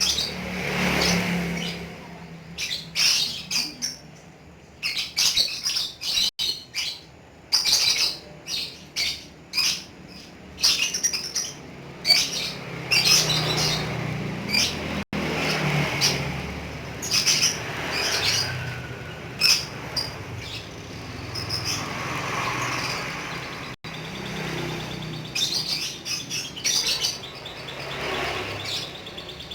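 Lovebird chattering in clustered runs of rapid, sharp, high-pitched chirps, with some longer chattering stretches in between: the long trilling chatter that lovebird keepers call 'ngekek'.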